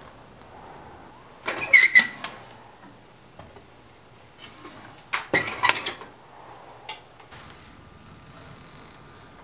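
Two short bursts of metal clanking and scraping, the first with a brief ringing tone, the second about three and a half seconds later as the firebrick-lined door of a heat-treating kiln is worked by hand; a single click follows about a second after that.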